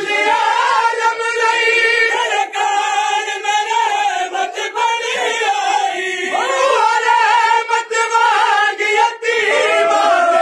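A group of men singing a noha, a Shia lament, together in unison, led by a reciter on a microphone. A few sharp slaps of matam, hands striking chests, cut through now and then.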